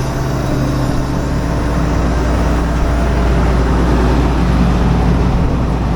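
Farm vehicle engine running steadily under load: a loud, even low hum with machinery noise over it.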